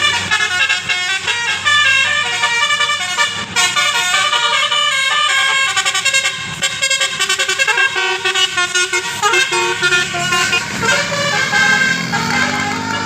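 Bus basuri telolet horn playing a quick melody of short pitched notes, with the bus engine running underneath.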